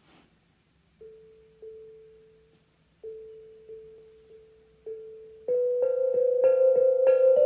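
Steel tongue drum struck with felt mallets, playing a tune in A minor. At first, soft repeated strokes on one note each ring out and fade. About halfway through, louder and quicker strokes on several tongues ring over one another.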